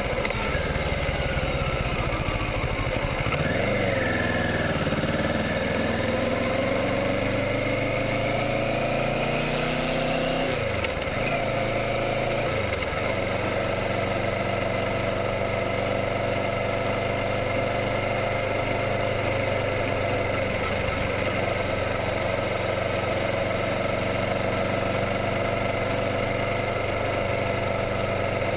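Kawasaki Ninja 650's parallel-twin engine running. Its pitch falls, climbs and drops again over the first dozen seconds, then holds steady.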